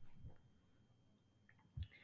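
Near silence: room tone, with the tail of an earlier sound fading out at the start and a faint brief sound near the end.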